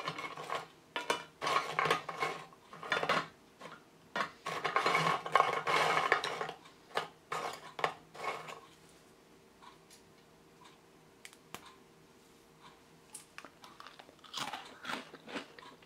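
Crisp homemade butter cookies being bitten and chewed: a run of loud, dry crunches for the first eight seconds or so, then a few lighter crunches near the end. The crunch shows the cookies have turned crisp, biscuit-like, once cooled.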